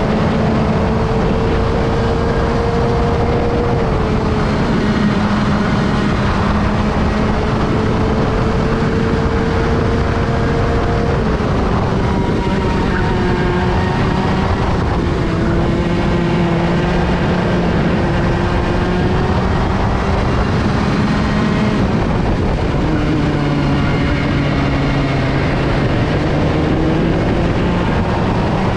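Woltjer-built racing kart engine at full throttle through a lap: its pitch climbs steadily along the straights and drops sharply into the corners, several times over, falling lowest for a slow corner before pulling up again near the end. A steady rush of wind and road noise runs underneath.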